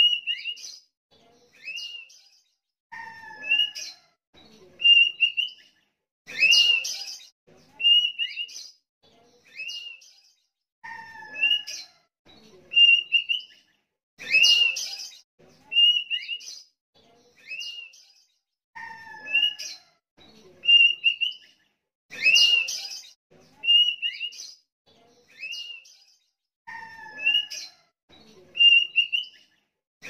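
Sooty-headed bulbul (kutilang) singing: short clear whistled notes about once a second, broken by a louder burst of chattering notes and a pair of lower falling whistles, the whole phrase sequence repeating about every eight seconds.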